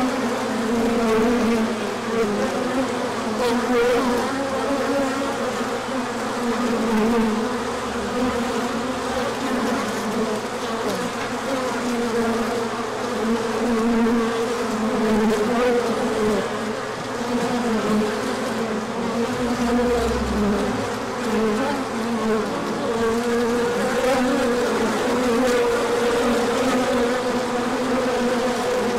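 Many honey bees buzzing in flight close to the microphone: a continuous drone whose pitch wavers slightly as the bees move about.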